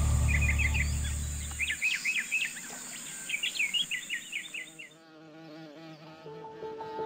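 Insects droning steadily at a high pitch while a bird gives repeated runs of quick chirps; both cut off suddenly about five seconds in. A low hum dies away in the first two seconds, and soft piano music comes in near the end.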